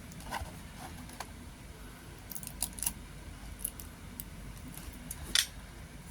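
Scattered light clicks and taps of a carded diecast toy car's plastic blister pack being handled, with a sharper click near the end.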